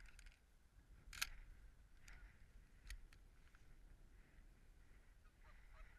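Near silence with a few faint clicks, the sharpest about a second in. Near the end, goose honks begin in a quick series, about five a second.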